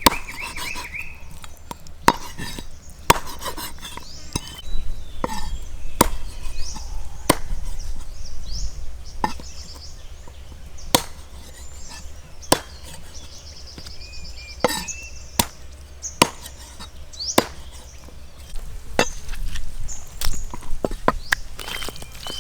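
Knife chopping on a wooden cutting board: single sharp strokes, about one every second or so, with pauses between. Birds chirp in the background.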